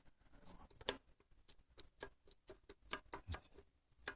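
Faint, irregular light clicks and taps, several a second.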